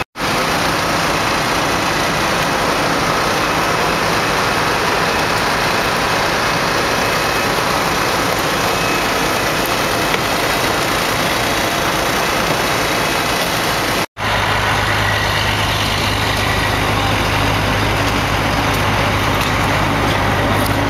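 Emergency vehicles' engines idling, a steady engine rumble with a constant noisy haze. After a cut about two-thirds of the way in, a steadier low engine hum comes in, with the ambulance's rear open and idling close by.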